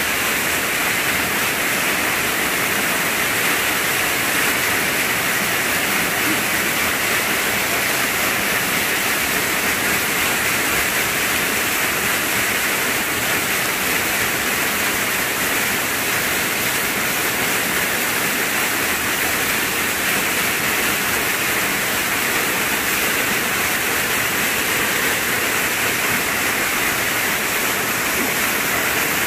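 Small waterfall pouring over a rock ledge into a pool: a steady, even rush of falling water.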